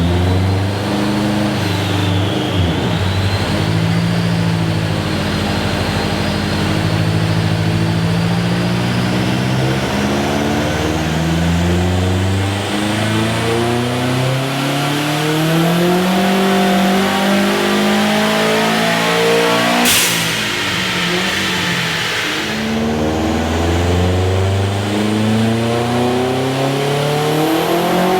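Subaru GC8 WRX STI's turbocharged flat-four engine pulling hard under load, its pitch climbing slowly over many seconds with a faint rising whine above it. About two-thirds through comes a sudden burst of hiss lasting a couple of seconds.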